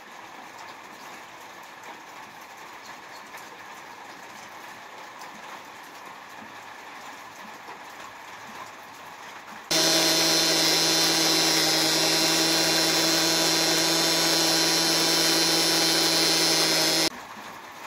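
Electric blade coffee grinder running steadily for about seven seconds, milling whole oat grains into flour; it switches on about ten seconds in and cuts off suddenly near the end. Before it starts, only faint handling noise.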